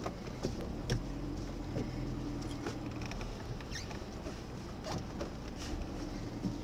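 Inside a car's cabin: the engine running with a low, steady hum as the car creeps along, and scattered irregular taps of raindrops on the roof and windshield.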